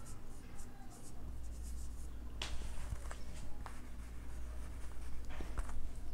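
Marker pen writing on a whiteboard: a run of short scratchy strokes with a few sharp taps against the board, over a low steady hum.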